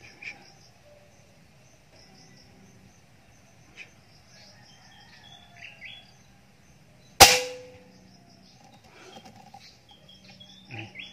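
A single sharp rifle shot about seven seconds in, with a brief ringing tail. Faint bird chirps sound in the background.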